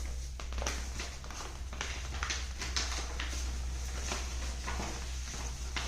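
Paper rustling and crinkling in irregular short crackles as a creased square of paper is pushed in and folded by hand.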